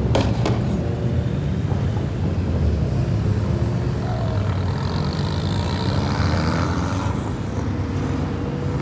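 Cars crawling past in slow traffic, their engines and exhausts making a steady low drone. Two sharp clicks about half a second apart at the start, and a faint high whine rising about halfway through.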